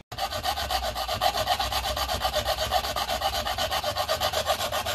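Small hand hacksaw cutting through a sheet-metal plate in quick, even strokes, a steady rasping scrape that starts abruptly.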